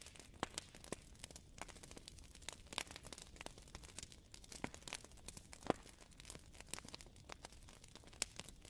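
Faint irregular crackling: sparse sharp clicks and pops, a few a second, over a low steady hiss.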